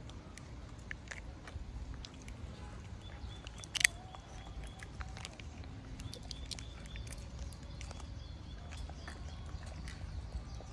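Small clicks and taps of a plastic jelly cup as a macaque licks and sucks at it, with one sharper click about four seconds in.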